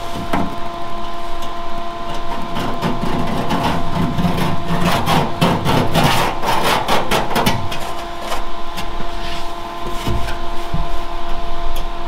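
Quick scraping and clicking of metal against sheet steel inside a ute's rear quarter panel, thickest in the middle of the stretch, over a steady electrical-sounding hum.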